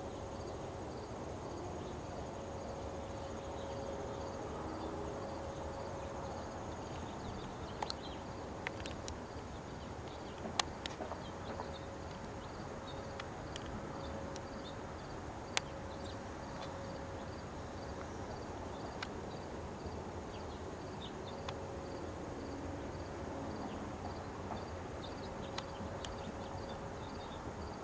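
A faint, steady mid-pitched hum of unknown origin, heard in the open night air, swells and fades in slow waves; it is the strange hum the recorder is trying to capture. Crickets chirp in a steady pulse throughout, and a few sharp clicks sound now and then.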